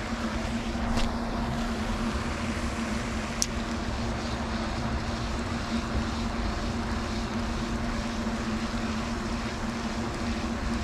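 Spinning reel being cranked steadily on a fast retrieve of a blade bait, its gears giving a steady whir, with wind rumbling on the microphone and two faint ticks early on.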